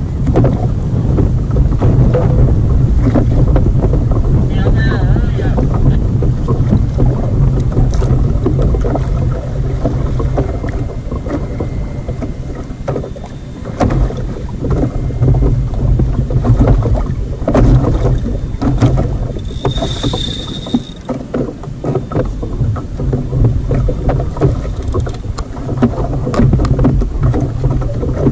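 Wind rumbling on the microphone of a camera on a kayak on choppy sea, with water slapping the hull and irregular knocks and clicks from rod-and-reel handling while a fish is being fought. A short high tone sounds about two-thirds of the way through.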